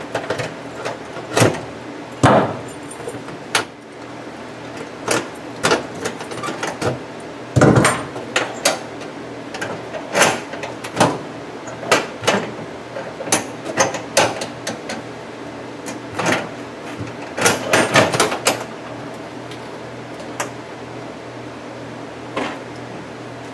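Padlocks being unlocked and taken off the hasps of an aluminum diamond-plate truck toolbox: a string of sharp metallic clicks and clanks of keys, lock shackles and hasps against the aluminum, with a quick run of them about three quarters of the way through.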